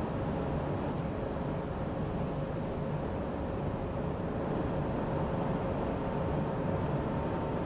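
Steady low rumble of a car ferry's engines as the ship passes close by, with a faint steady hum above it.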